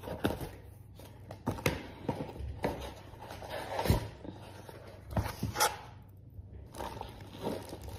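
Scattered short knocks, clicks and rustles of a door lock's packaging and parts being handled and moved about during unboxing.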